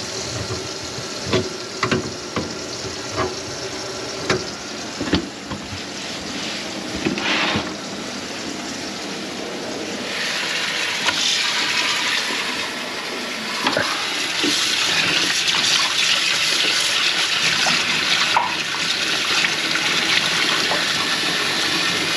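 Water running and splashing in a kitchen sink, with scattered knocks in the first several seconds and a louder, hissier flow from about ten seconds in. The sink is being tested on a drain line clogged with grease.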